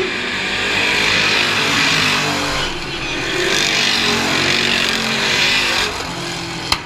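Stock car engines racing on a dirt oval, their pitch rising and falling as the cars sweep past, loudest as a car passes close by. A sharp click near the end.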